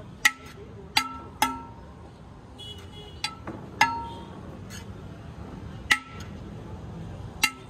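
A metal serving spoon knocking against the rim of a large aluminium biryani deg about seven times, each knock ringing briefly with a bell-like tone.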